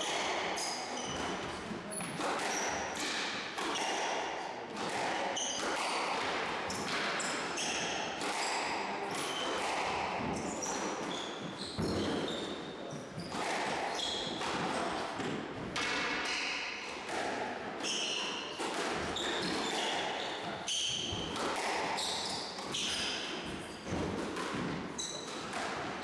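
Squash rally: the ball cracks off rackets, the front wall and side walls every second or so, with short high squeaks of court shoes on the wooden floor between the hits.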